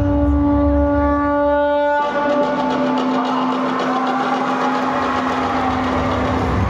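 Conch shell (shankh) blown in two long blasts. The first is held over a deep rumble and ends about two seconds in. The second follows at once, a little lower in pitch, and is held for about four seconds.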